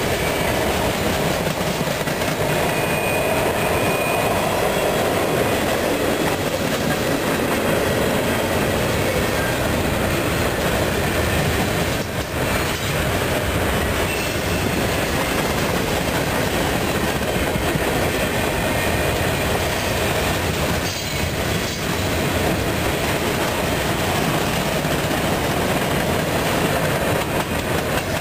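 Freight cars of a mixed freight train rolling past at close range: a steady rumble and clatter of steel wheels on rail joints, with a brief high wheel squeal about three seconds in.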